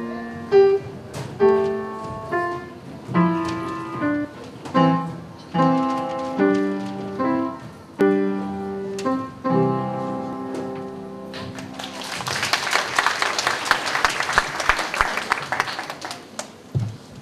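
Solo piano playing a slow, measured melody over chords, note by note with each note ringing and decaying. About twelve seconds in the playing stops and applause breaks out for roughly four seconds, then dies away.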